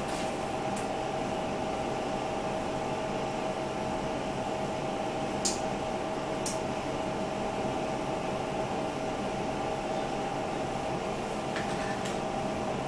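Steady whirring appliance hum, like a fan motor, with two steady tones in it. Four light clicks come from a plastic spice shaker being handled and shaken, one about a second in, two about halfway through and one near the end.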